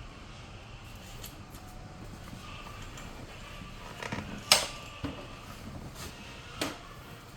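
Handling noises as a package is opened: a few sharp clicks and knocks, the loudest about four and a half seconds in.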